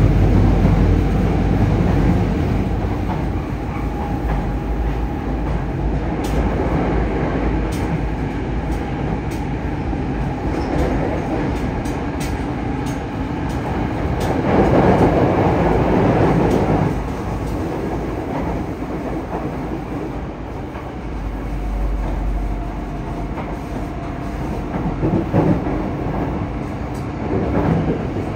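Running sound inside a Yokohama Municipal Subway 3000S-type train car: steady wheel-and-rail rumble with scattered clicks from the track. The rumble swells for a few seconds about halfway through.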